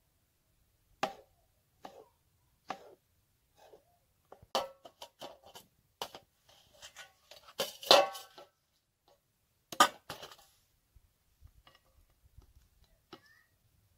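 Knife chopping tomatoes on a wooden cutting board set on a metal tray: separate sharp knocks and clinks at an uneven pace, with a quick run of them about four and a half seconds in and the loudest clatter around eight and ten seconds.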